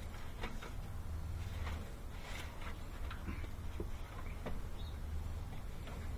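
Faint scraping, rustling and small clicks of leaves and debris being scooped by a gloved hand out of the base of an AC condenser unit, over a steady low rumble.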